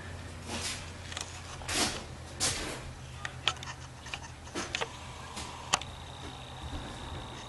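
Indoor room tone: a low steady hum with scattered small clicks, knocks and brief shuffling noises, as people move on a bare floor and the camera is handled. A faint high steady tone comes in near the end.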